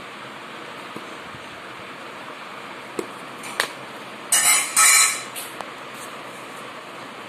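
Scissors cutting through folded paper: two crisp cuts, each about half a second long, a little past the middle, after a couple of small clicks, over a steady hiss.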